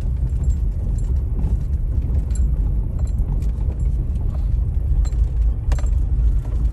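Road noise inside a moving car: a steady low rumble of engine and tyres, with a few light clicks and ticks scattered through it.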